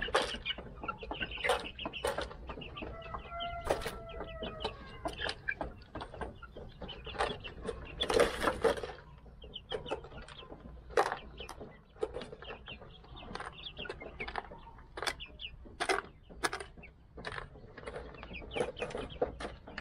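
Flock of 55-day-old Silver Laced Wyandotte chicks calling and clucking, with short high peeps near the start and one longer, slightly falling call a few seconds in. Many short sharp taps run through the calls.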